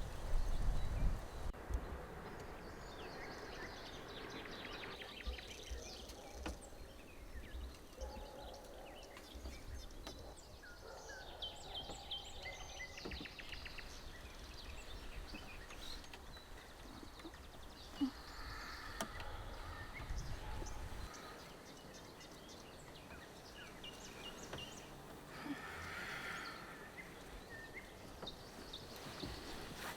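Forest ambience: small birds chirping and trilling here and there, over a low rumble. A few heavy knocks near the start and a single sharp click partway through.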